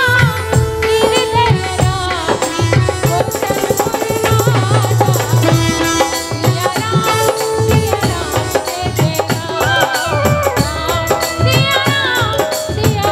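Live devotional bhajan: a woman's amplified voice singing a wavering melody, accompanied by hand drums keeping a steady beat.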